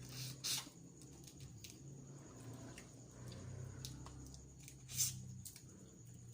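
Close-up eating sounds of boiled seafood: wet squishing and chewing with small clicks, and two louder short noises, about half a second in and about five seconds in.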